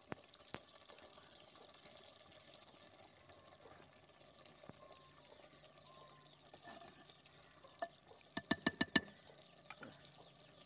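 Faint, steady simmering of a vegetable curry in a clay pot over a wood fire. Near the end comes a quick run of about seven sharp knocks as a wooden spoon is tapped against the clay pot.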